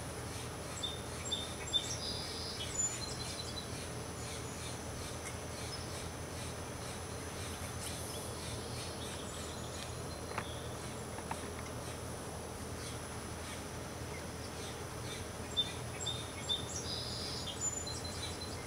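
Outdoor backyard ambience: a steady background hiss and a thin, steady high tone, with a few faint, short bird chirps about a second in and again near the end.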